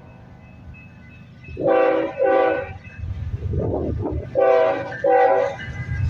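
Union Pacific 8107 locomotive's air horn sounding four chord blasts in two pairs, the first pair under two seconds in and the second pair about three seconds later. Under the second pair runs the low rumble of the train as it comes closer.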